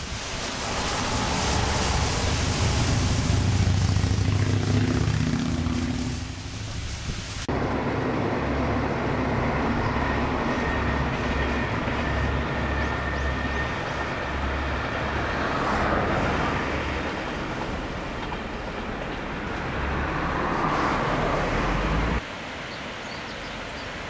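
Rushing water of a waterfall, then from about seven seconds in the steady low drone of a JR Shikoku 2000 series diesel train running past, with a faint high steady tone and two swells as it passes. Near the end it cuts to the quieter, even rush of a rocky river.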